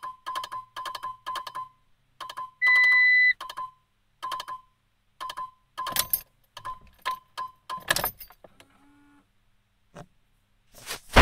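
Vehicle dashboard warning chime ticking rapidly, about three times a second. About 2.6 s in comes one longer, higher steady beep, then the ticks slow and stop after about eight seconds. There are a few clicks, and near the end a loud rustle of handling.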